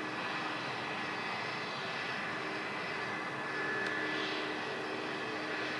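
Airbus A318's Pratt & Whitney PW6000 jet engines running at low taxi power: a steady whine with a few held tones, swelling slightly about four seconds in.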